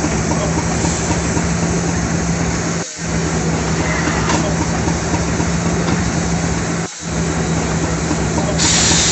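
Hunslet steam locomotive standing with steam hissing steadily over a steady low hum, briefly broken twice; the hiss grows sharply louder and higher near the end.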